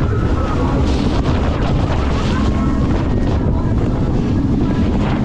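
Jet boat running at speed: a steady engine drone under heavy wind buffeting on the microphone and the rush of churned water from the wake.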